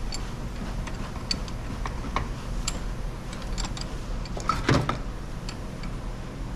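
Scattered light metallic clicks and taps from hand tools and a stainless workpiece being handled and clamped, with one louder clunk near the middle, over a steady low shop hum.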